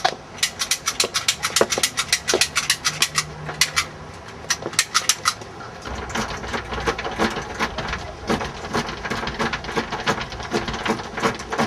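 A locksmith's tools working a lock, making rapid metallic clicking and rattling, several clicks a second. The clicks thin out after about five seconds, and a low rumble comes in underneath.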